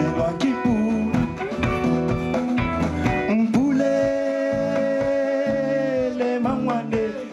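Live band music: a singer holding a long sung note over guitar, bass and drums.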